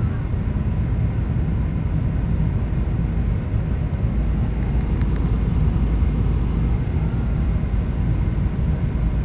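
Boeing 777 cabin noise in the climb after takeoff: a steady low roar of the jet engines and rushing air.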